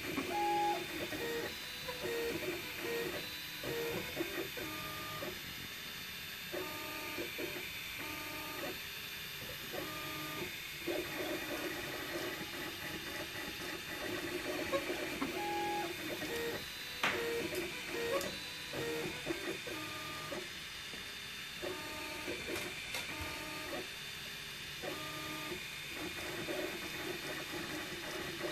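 MakerBot Replicator 2 desktop 3D printer printing: its stepper motors whine in tones that jump between pitches as the print head moves back and forth. The same sequence of moves repeats about every 15 seconds, layer after layer. There is one sharp tick about seventeen seconds in.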